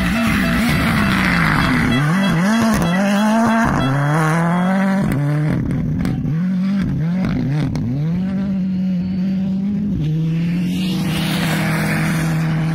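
Rally car engine revving hard through a stage section, its note rising and dropping again and again with throttle lifts and gear changes. There are a few sharp cracks near the middle, and the note then holds steady for the last few seconds.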